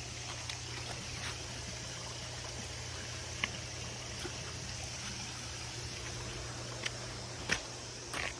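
Faint steady trickling water over a constant low hum, with a few sharp scuffs of footsteps on rock and gravel, most of them near the end.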